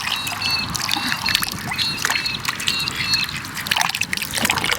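Water trickling and splashing as eggs are rinsed by hand, with small clicks and knocks. Short high chirps repeat several times over it.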